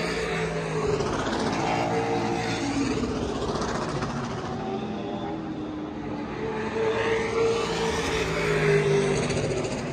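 Race car engines running, their pitch rising and falling, with a louder stretch near the end.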